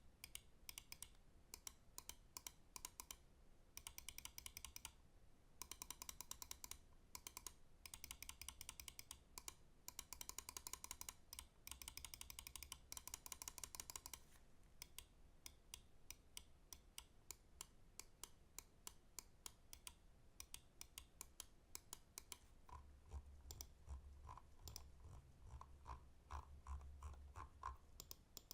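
Pulsar X2V2 gaming mouse buttons clicking, first in rapid bursts of many clicks, then about halfway through in slower, more spaced single clicks.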